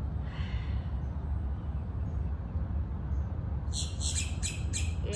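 A bird gives a quick run of five or six harsh notes, about five a second, near the end, over a steady low rumble.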